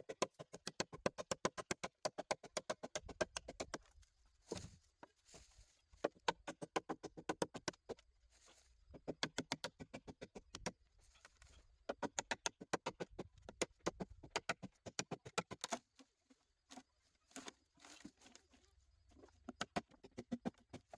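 Rapid trains of sharp taps or knocks, several a second, coming in bursts of a second or two with short pauses between.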